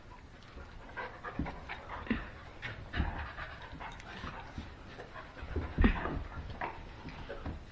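Bernedoodles panting close by while being petted and handled, with irregular scuffling and a few low thumps, the loudest a little before six seconds in.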